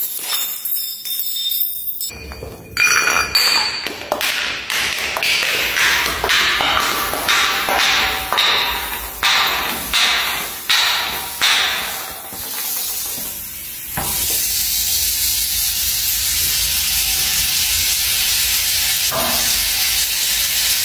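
A glass Coca-Cola bottle knocking down marble stairs, striking step after step about a dozen times, then the spilled, foaming cola fizzing with a steady hiss.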